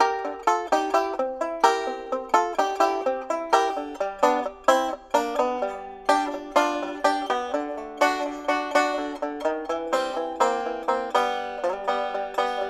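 Background music: fast plucked banjo picking in a bluegrass style.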